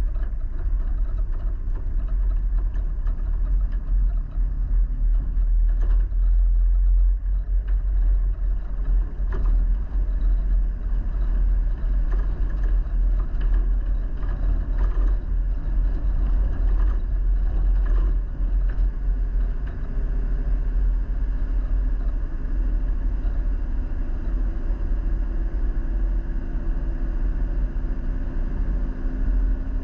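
A motor vehicle driving, with a steady heavy low rumble of engine and road noise. In the last few seconds a pitched engine note climbs slowly as it speeds up.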